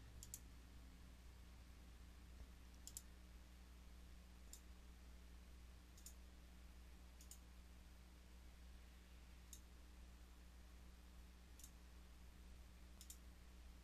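Near silence: a faint steady low hum with about eight soft, sharp clicks at uneven intervals of one to two seconds.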